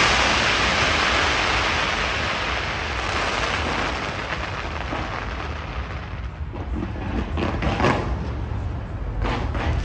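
Fireworks going off in quick succession: a dense, continuous crackle over a low rumble of shell bursts, with a few separate bangs in the second half.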